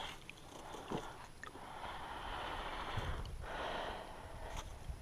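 A person breathing heavily close to the microphone: two long, hissy breaths, the first from about a second in, the second just past the middle.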